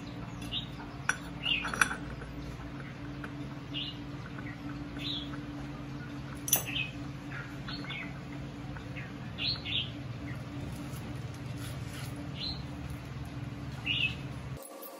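Metal clutch parts clinking sharply now and then as they are handled and fitted onto a motorcycle's clutch hub. A bird chirps in short calls about ten times, over a steady low hum.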